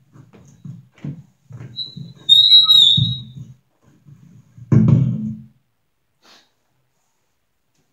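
Low shuffling and knocking of someone moving about after getting up from the keyboard, with a short high squeak about two seconds in and a heavier thump about five seconds in.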